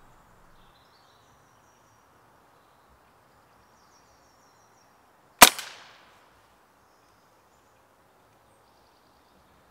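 A single sharp crack from a Walther RM8 pre-charged pneumatic air rifle firing, about halfway through, with a short fading tail. It is a hit that drops the squirrel on the feeder. Faint birdsong and quiet outdoor background run around it.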